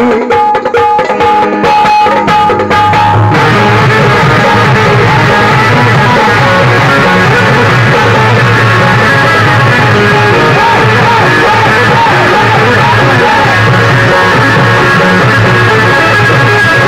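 Qawwali music played loudly by the ensemble. A few sharp percussion strokes come first, then from about three seconds in the keyboard and percussion play together densely and steadily.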